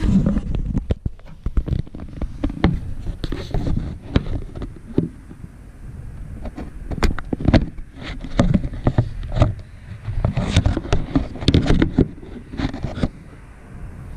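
Irregular clatter of sharp knocks, clicks and scrapes, busiest about halfway through and again near the end, over a steady low rumble.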